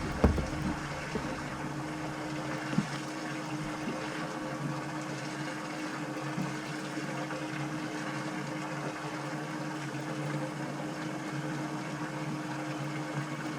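Bass boat's livewell pump running with a steady hum while water splashes into the well, with a couple of light knocks.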